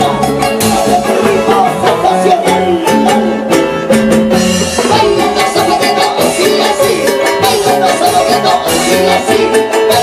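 Live band playing Andean huayno music, acoustic guitar strummed over bass with a steady beat.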